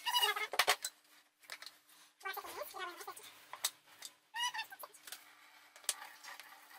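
A toddler's high-pitched wordless vocal sounds in three short bursts, with scattered clicks and stirring noise from a whisk working slime in a plastic bowl.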